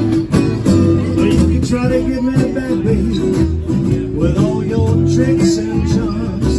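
Two steel-string acoustic guitars playing a blues number together, strummed and picked in a steady rhythm.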